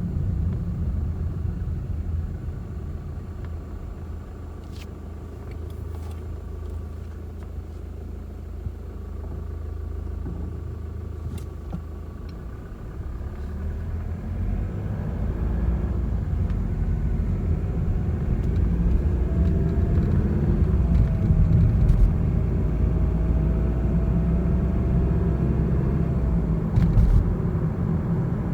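Mazda CX-30's 1.8-litre turbodiesel car driving, with steady road and engine rumble and a thin, flute-like whistling tone over it. The whistle rises in pitch about halfway through and then holds. It is an abnormal whistle that appears above about 40 km/h and near 1,800 rpm, and it has persisted through dealer replacement of the turbocharger, exhaust parts, a partial engine and the transmission.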